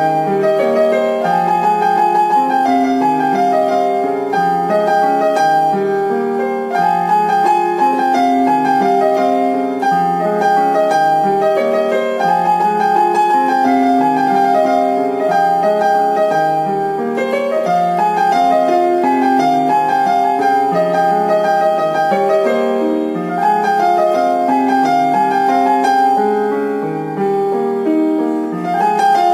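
Background piano music: a melody of quick, evenly paced notes over lower notes that step along.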